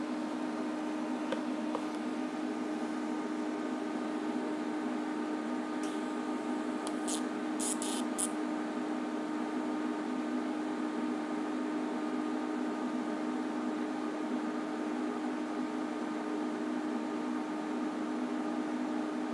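Steady hum and hiss of DC TIG welding on thin stainless steel: an Everlast inverter welder running while its arc burns at low current, around 30 amps. A few short, sharp crackles come about six to eight seconds in.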